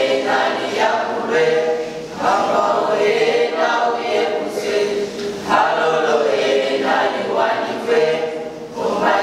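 Small mixed group of girls' and boys' voices singing a cappella in harmony, in phrases broken by short breaths about every three seconds.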